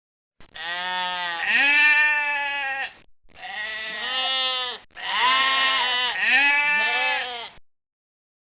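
Goat bleating: three long calls that waver in pitch, the last two following almost without a break.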